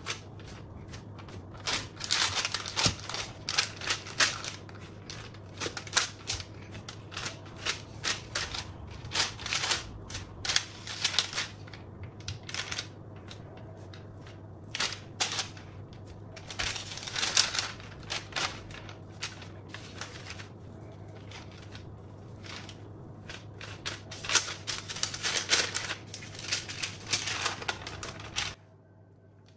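Baking parchment crinkling and rustling in irregular bursts of sharp crackles as hands press a round of yeasted stollen dough flat on it and fold it over, with soft pats on the dough and a low steady hum underneath.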